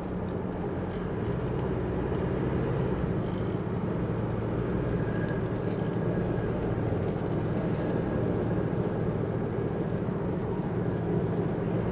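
Chevrolet S10 pickup driving on a highway, heard from inside the cab: a steady engine and road drone with a faint whine in the middle, the noise the owner blames on worn differential gears.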